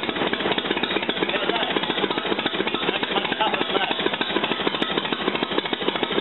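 Vintage farm tractor engine running steadily, its exhaust a rapid, even chugging.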